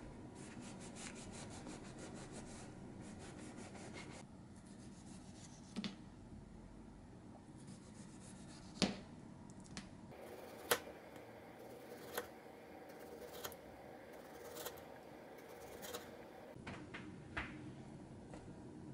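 Ceramic kitchen knife sawing through a crisp croissant, with a quick run of crackles from the flaky crust. Then the knife slices a tomato on a plastic cutting sheet over a wooden board, the blade tapping down about once a second.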